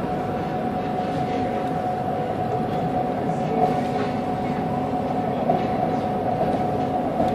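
Fishing vessel's engine and machinery droning steadily, a constant hum over a dense rumble with a few light knocks, heard from inside the wheelhouse.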